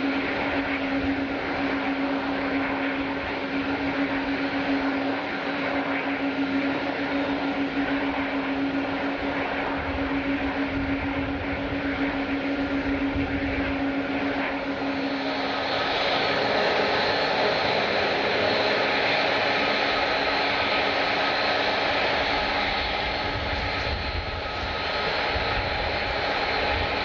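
Jet airliner engines running: a steady rush of engine noise with a low drone. About halfway the drone stops and a higher whine comes in, and the noise grows slightly louder.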